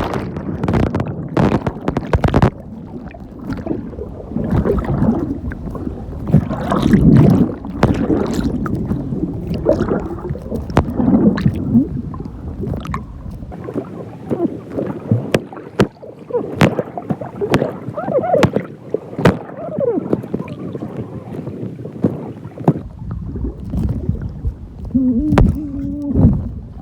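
Sea water splashing and gurgling around a phone taken into the water by a swimmer. The sound is muffled and uneven, with many sharp knocks from the phone being handled.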